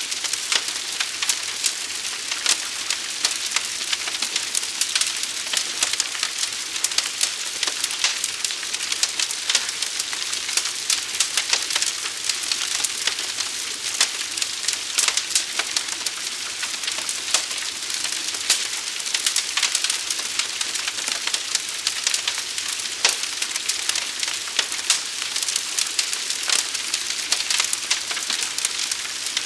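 Fire burning with a dense, unbroken crackle: many small sharp pops scattered irregularly over a steady hiss.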